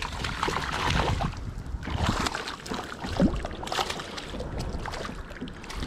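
A hooked bass splashing and thrashing at the water's surface right beside a kayak as it is played in. The splashes come irregularly, one after another.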